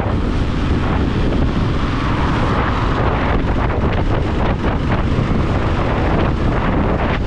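Wind rushing over the microphone of a motorcycle at highway speed, with the bike's engine and road noise underneath.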